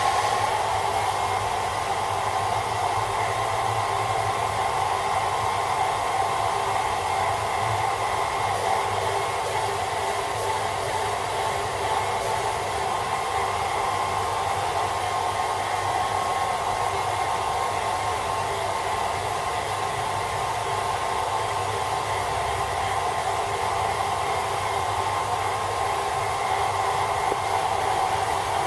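Hairdryer running steadily, a constant blowing whir with a high whine in it and no change in speed.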